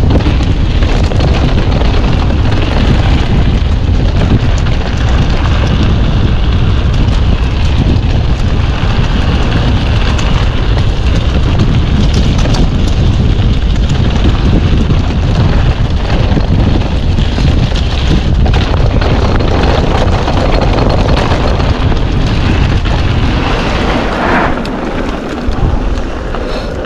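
Strong wind buffeting the microphone: a loud, continuous low rumble that eases off near the end.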